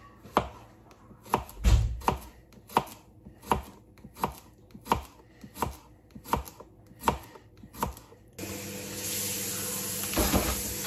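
Knife chopping a baby cucumber into slices on a plastic chopping board: about a dozen crisp, even strokes, a little over one a second. Past the middle the background jumps suddenly to a steady hiss with a low hum, and a serrated knife shreds cabbage against the board near the end.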